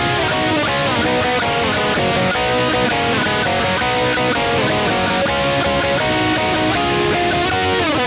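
Electric guitar played through a Boss ME-80 multi-effects in a hair-rock tone: a lead line of sustained notes with string bends and vibrato. At the very end the pitch swoops sharply down.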